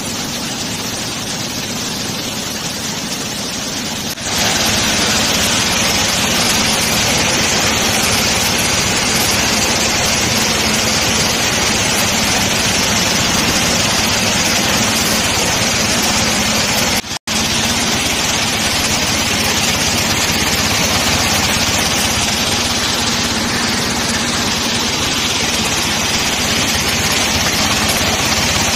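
M-sand washing plant running: a bucket-wheel sand washer and a vibrating dewatering screen with its vibrator motors, with wet sand slurry and water pouring through. It makes a steady, loud mix of machine hum and rushing water that steps up louder about four seconds in and cuts out for an instant a little past halfway.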